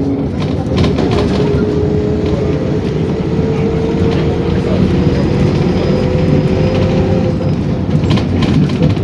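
Inside a PAZ Vector Next bus on the move: a steady engine and driveline rumble with a whine that rises slowly in pitch. Short rattles from the body come about a second in and again near the end.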